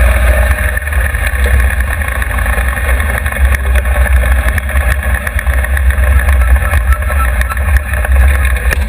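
Drag race car's engine running steadily as the car rolls slowly, heard from inside the cockpit, with a heavy low rumble throughout.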